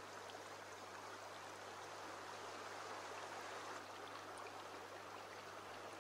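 Shallow stream running over stones: a faint, steady wash of water, with a steady low hum underneath.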